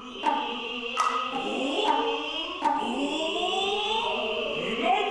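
Noh music: a high, shrill flute tone held over a few sharp hand-drum strikes, with long sliding vocal calls.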